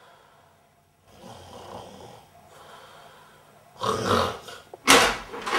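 A person snoring in their sleep: a soft snore about a second in, then two much louder snores near the end.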